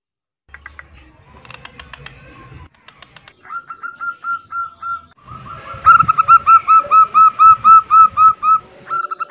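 Zebra dove calls, given as the hen in breeding condition calling to males: after a short silence come a few scattered clicking notes, then a quick, regular series of short clipped notes, about four a second, which grow louder about six seconds in.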